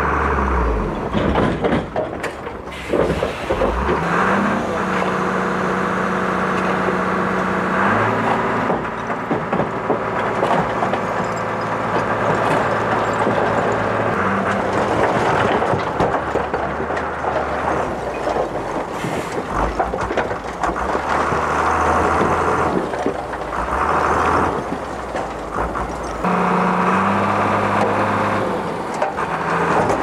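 Dump truck's diesel engine running under load to work the tipper hoist, its speed stepping up and down several times, while stones and rubble slide out of the raised bed.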